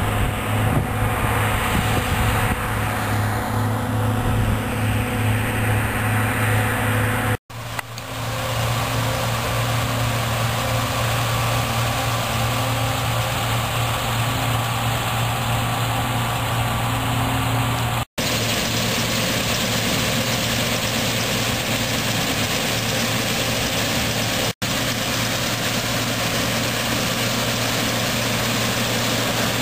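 John Deere C670 combine harvester running steadily while cutting rapeseed, a constant low engine drone. The sound cuts off abruptly three times and resumes at once.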